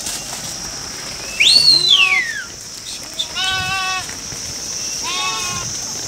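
A flock of goats and sheep bleating: two wavering bleats about three and a half and five seconds in. A louder high call sweeps up and then down about a second and a half in, over a steady high hiss.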